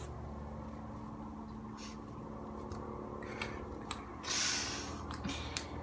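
Quiet room hum with a few soft clicks, and one short breathy hiss about four seconds in.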